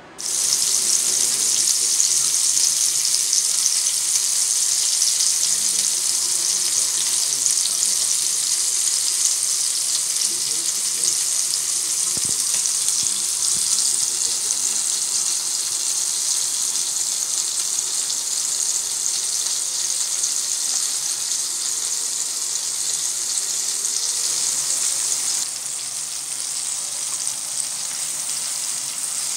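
Seasoned steak pieces sizzling in hot oil in a stainless steel frying pan: a steady, dense sizzle that drops a little in level near the end.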